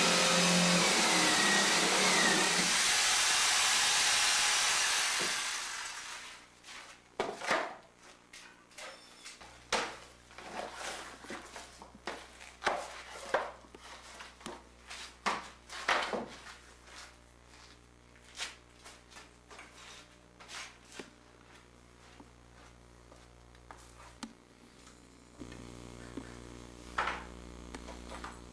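A loud, steady rushing noise dies away about five seconds in, followed by scattered knocks and clatter of objects being handled on a floor, with a low hum coming in near the end.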